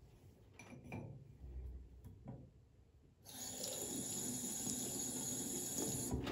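A few light knocks, then a tap is turned on about three seconds in and water runs steadily into a sink before being shut off near the end.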